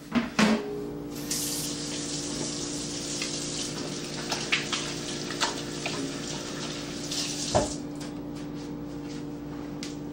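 Kitchen faucet running into a stainless steel sink as hands are washed under it, the water starting about a second in. A few knocks sound: two near the start and a sharper one about seven and a half seconds in.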